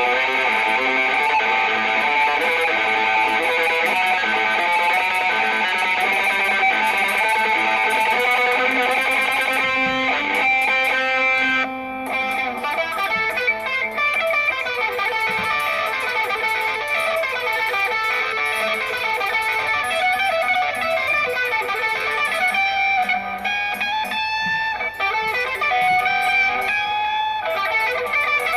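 Electric guitar being played, a continuous run of changing notes with a brief break about twelve seconds in.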